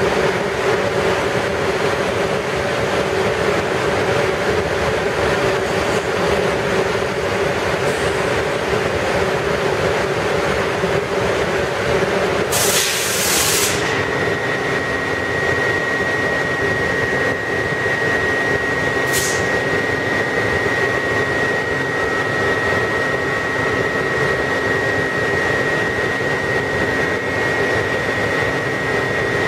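A New York City Subway shuttle train standing at the platform with its doors open, its onboard equipment giving a steady hum and rush. About 13 seconds in comes a loud hiss of about a second, with a shorter one near 19 seconds, and from then on a steady high whine runs under the hum.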